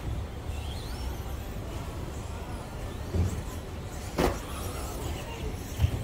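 Electric RC stadium trucks racing, with faint rising motor whines and a few knocks from the trucks on the track. The loudest is a sharp knock about four seconds in as a truck comes off a ramp. All of it sits over a steady low rumble.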